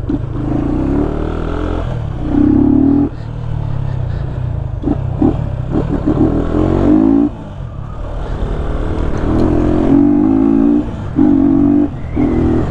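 Yamaha Fazer 250's single-cylinder engine, running with its air filter removed, pulling hard under acceleration. The revs swell and cut back sharply about three, seven and twelve seconds in, as the throttle closes for gear changes.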